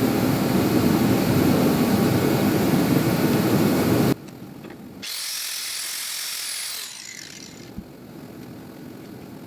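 A shop heater runs loudly with a steady rumble, then cuts off abruptly about four seconds in. About a second later an angle grinder spins up with a high whine, runs for about two seconds and winds down.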